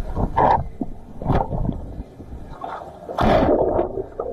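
Shallow seawater sloshing and gurgling around a camera microphone at the water's surface, coming in irregular surges, the strongest about three seconds in.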